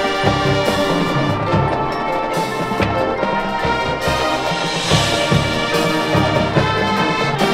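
High school marching band playing its field show: brass holding full chords over drums and percussion, with a brief bright swell about five seconds in.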